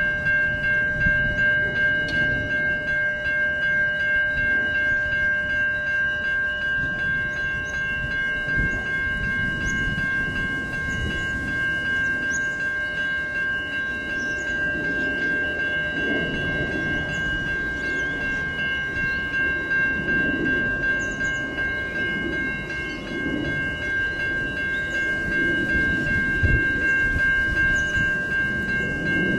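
A yellow diesel railcar and a 4000-class electric train rolling slowly toward the listener on curved track: a low uneven rumble of engines and wheels that swells and fades, under a steady high-pitched whine held at one pitch throughout.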